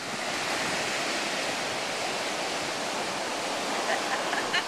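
Ocean surf breaking and washing up a sandy beach, a steady rush of water noise. Faint voices come in near the end.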